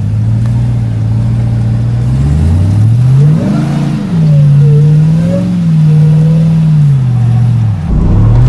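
Pickup truck engine revving under load while crawling over trail rocks. It runs low and steady for about two seconds, revs up hard around three seconds in and drops back, holds a higher pitch with a small swell, then falls back near the end.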